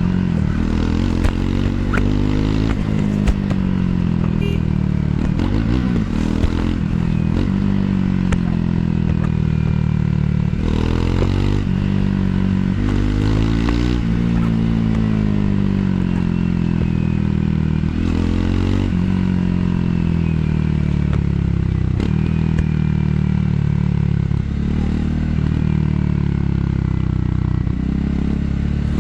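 Triumph Scrambler 400 X's single-cylinder engine heard from the rider's seat, its revs climbing and falling again and again with throttle and gear changes, over steady wind rush on the microphone.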